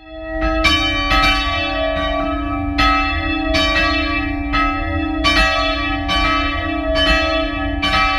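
Church bells ringing, several bells struck in turn with long ringing overtones, roughly one stroke a second over a steady low hum. It swells in at the start.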